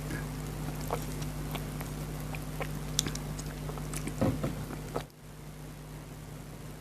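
Close-miked chewing and mouth sounds of someone eating chicken biryani: scattered soft clicks and smacks over a steady low hum, with a louder cluster about four seconds in. The background hum drops suddenly about five seconds in.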